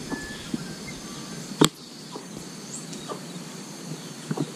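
Forest night ambience: insects buzzing steadily at a high pitch, with a few brief high whistle calls. A single sharp knock comes about a second and a half in, louder than everything else.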